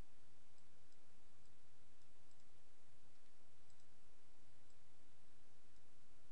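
Steady electrical hum and hiss from the recording setup, with a few faint, short clicks of a computer mouse as a button is drawn on the form.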